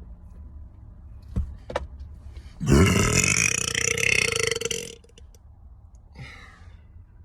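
A man's single loud, long burp lasting about two seconds, with two short clicks just before it.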